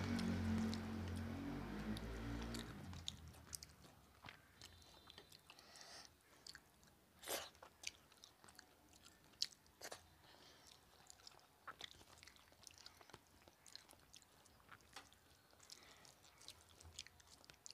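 Close-miked chewing and biting while eating rice and fish by hand, with scattered short mouth clicks and smacks. The chewing is louder for the first few seconds, then settles into quieter, irregular clicks, one of them sharper about seven seconds in.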